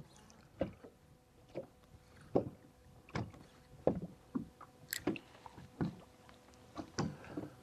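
Small waves lapping and slapping against a boat hull, a soft knock roughly every second, with a faint steady hum under it.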